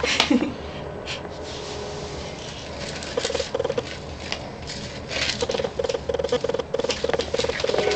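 Kitten handling the phone right at the microphone: irregular light clicks and scratches of paws and mouth on it. Short pulses at one steady pitch come about four a second, briefly after about three seconds and again through the last three seconds.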